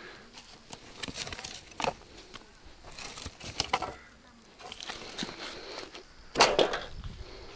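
Discarded rubbish, including parts of an abandoned grill, being picked up and handled: scattered knocks, rustles and footsteps, with one louder clatter about six and a half seconds in.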